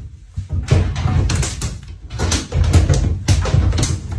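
Background music with a heavy bass line and frequent sharp percussive hits.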